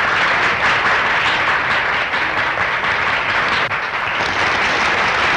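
A room full of people applauding: many hands clapping together in a dense, steady patter.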